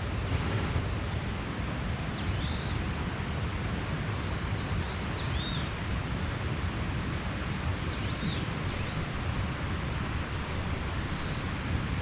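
Mountain stream rushing steadily, with a bird repeating short, high, arching chirps in groups of two or three every few seconds.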